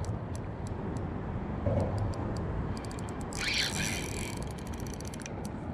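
Drag of a Shimano Sahara 2500 spinning reel clicking as a running fish pulls line off against it, over a steady low rush, with a short louder hiss about three and a half seconds in.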